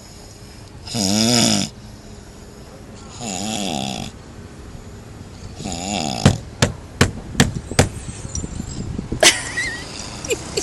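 A person snoring heavily in deep sleep: three long, rasping snores about two seconds apart. The third breaks into a quick run of sharp clicks, and one more click comes near the end.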